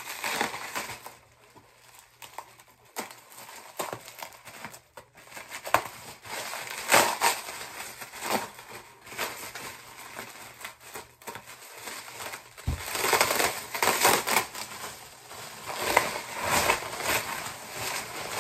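Bubble-wrap packaging crinkling and rustling as it is handled and cut open with scissors, in irregular bursts. It is quieter for the first few seconds and louder later on.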